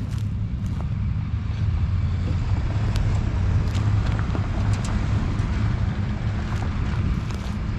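Heavy vehicle engine running steadily with a low rumble, growing louder as it approaches.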